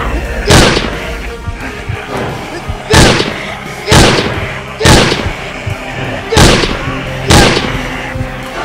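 Background music with six loud, sharp bangs or impacts laid over it, the first near the start and the rest roughly a second apart from about three seconds in, each dying away quickly.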